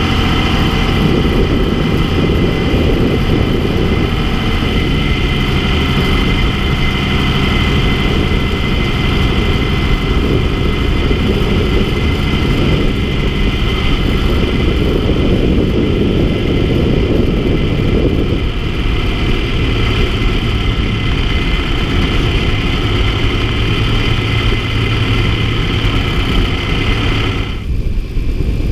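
Tractor engine running steadily. About two-thirds of the way through, the low rumble thins and a steady low hum comes in, and near the end the higher whine drops away.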